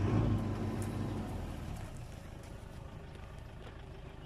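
Pickup truck engine pulling forward at low speed, loudest at the start and easing to a steady run after about a second.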